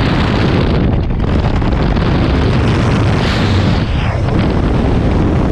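Loud wind rushing over a helmet-mounted camera microphone outside the open door of a jump plane in flight, mixed with the aircraft's engine and propeller. About three seconds in, a swoosh rises and then falls away in pitch as the jumpers exit into freefall.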